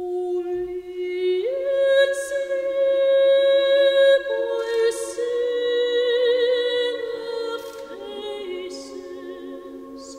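Choir singing a cappella in slow, held chords, with a higher part sliding in about a second and a half in and soft 's' sounds of the sung words now and then, the voices ringing on in a large church.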